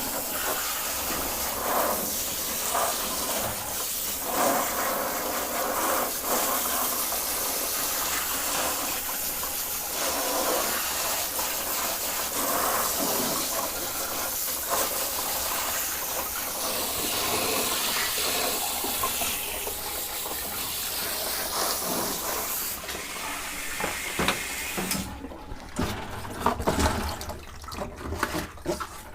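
Shower water running steadily, rinsing a vintage sewing machine. Near the end the steady spray breaks up into short, intermittent splashes.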